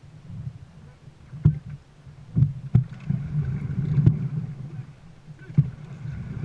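Dragon boat on the water: a steady low rumble of water against the hull, with a handful of sharp knocks and splashes at uneven intervals from the paddles and hull.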